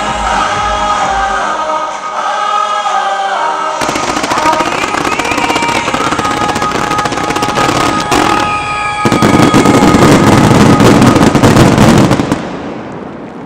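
A song with singing, then from about four seconds in dense crackling and banging fireworks over the music, building to a very loud continuous barrage for about three seconds before dying away near the end: the finale of a fireworks display set to music.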